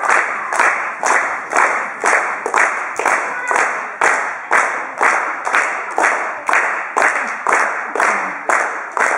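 Audience clapping in time, a steady beat of about two claps a second.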